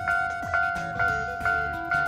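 Railway level crossing warning bell ringing, a clanging two-tone ding repeated about twice a second.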